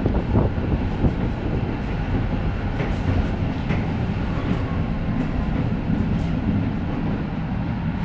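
Tram running along its track, heard from inside the passenger saloon: a steady low rumble of wheels and running gear, with a few faint clicks.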